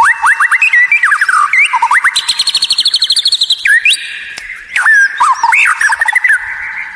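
White-rumped shama (murai batu) singing: a fast, varied string of loud whistles and sweeping notes, with a rapid run of repeated high notes in the middle, easing off near the end.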